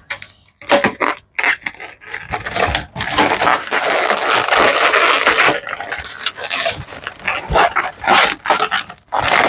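Latex modelling balloons squeaking and rubbing against each other as a red 350 balloon is twisted into a yellow balloon head. Short squeaks at first, then a long unbroken stretch of squeaking in the middle, then short squeaks again.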